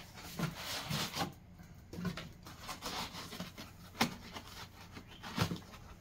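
Cardboard packaging being handled: a box insert rubbing and scraping against the box, with a few sharp knocks, two of them louder near the end.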